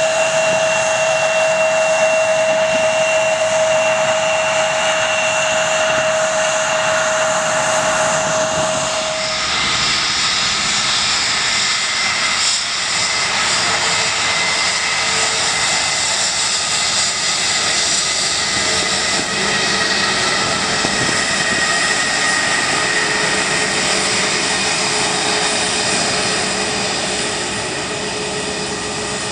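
Jet engines of a Bombardier CRJ-700 running as it taxis, a steady whine with high tones. About nine seconds in this changes abruptly to the steady jet whine of a taxiing Airbus A321-200.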